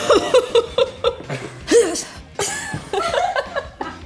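A young woman laughing behind her hand: stifled giggles in short, uneven bursts.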